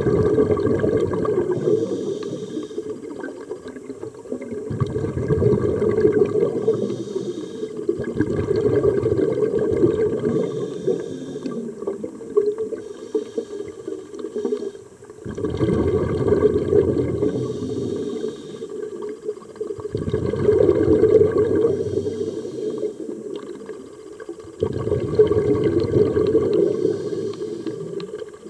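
Bubbles from a scuba diver's regulator gurgling past an underwater microphone in repeated surges a few seconds apart, like breaths being exhaled.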